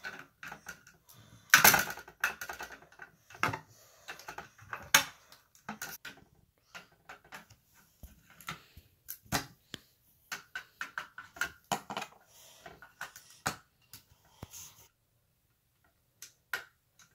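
Plastic LEGO bricks, minifigures and baseplates clicking and clattering on a wooden table as they are handled and pressed together, in irregular clicks, the loudest about a second and a half in. It stops a couple of seconds before the end, apart from one last click.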